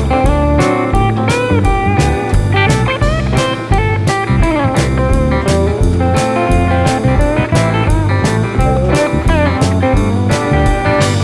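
Background music: blues-rock with a bending electric guitar lead over a steady drum beat.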